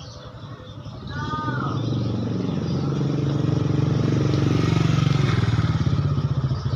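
Motorcycle engine running as it approaches and passes, growing louder from about a second in and loudest around five seconds in.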